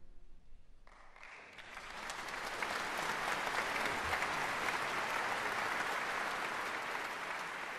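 A large audience applauding: a brief hush, then clapping starts about a second in and builds into steady, dense applause.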